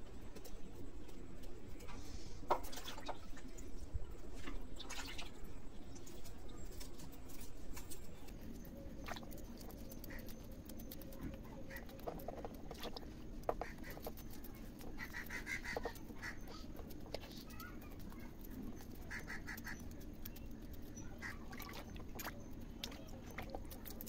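Hands scraping scales off whole hilsa fish in a basin of water: faint scattered scrapes, clicks and small splashes. Short animal calls sound in the background twice past the middle.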